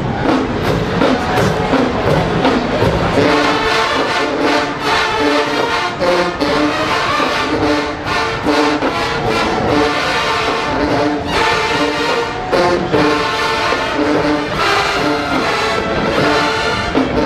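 College marching band playing loudly: brass section sounding short repeated notes over drums.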